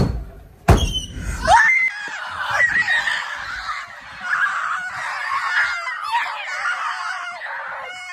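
A loud rumbling noise cuts off about one and a half seconds in. Then a group of kids scream and shout excitedly, many high voices overlapping.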